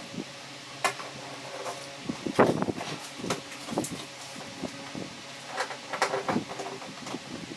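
Irregular knocks, clicks and short scrapes of a saxophone box and its packaging being handled and opened, over a faint steady hum.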